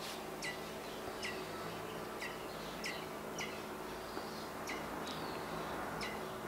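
Young American robin chirping excitedly: about nine short, high chirps, each dropping sharply in pitch, at uneven intervals of roughly half a second to a second, over a faint steady hum.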